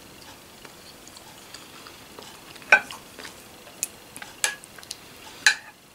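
A spoon clinking against a soup bowl while scooping soup: four sharp clinks in the second half, some with a short ring.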